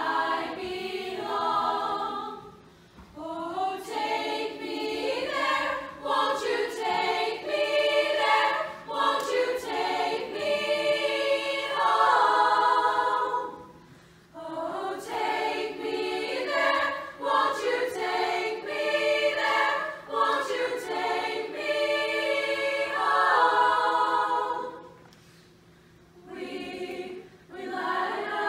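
Choir of teenage girls singing in harmony, in sung phrases with short breaks about 3, 14 and 25 seconds in.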